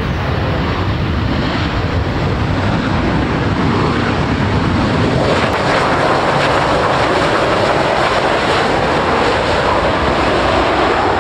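Gulfstream G-V's twin Rolls-Royce BR710 turbofans at takeoff power, a broad jet roar that swells as the jet accelerates down the runway and eases slightly near the end.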